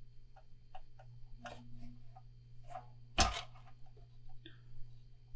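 Razor blade scraping hardened epoxy finish on a fishing rod blank to cut out a decal: quiet, irregular scratches and ticks, with one louder sharp click about three seconds in.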